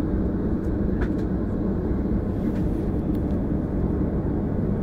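Steady low rumble of an airliner's engines and cabin, heard from a passenger seat beside the wing while the aircraft rolls along the ground, with a couple of faint small clicks.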